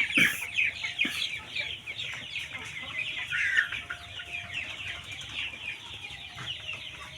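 A flock of chickens calling together: many short, high, downward-sliding cheeps overlapping continuously, with occasional clucks.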